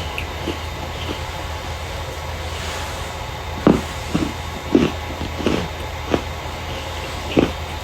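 Starch being crushed by hand, giving a series of sharp, irregular crunches over a steady low hum, most of them in the second half.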